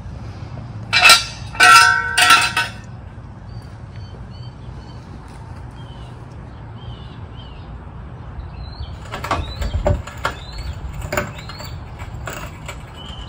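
Steel floor jack and jack-stand hardware clanking: three sharp metallic clanks with a brief ring about a second in. Later comes a run of clicks and knocks with one low thump as the long floor-jack handle is pumped to lift the rear of the truck.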